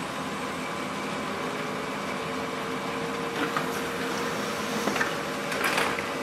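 Brother MFC-L2730DW laser printer running a print job: a steady machine hum with a whine that rises over the first couple of seconds and then holds, and a few clicks and rattles from the paper feed in the second half.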